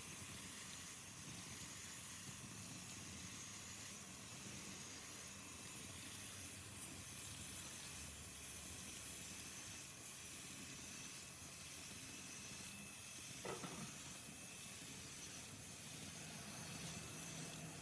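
A faint, steady hiss, with one short sound about thirteen and a half seconds in.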